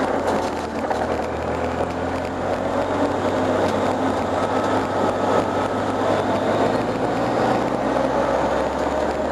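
Lancia Delta's engine running at a fairly even level while the car drives on tarmac, heard from inside the cabin with road noise.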